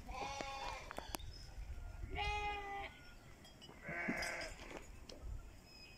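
Three faint bleats from unseen livestock, each under a second long and evenly spaced about two seconds apart.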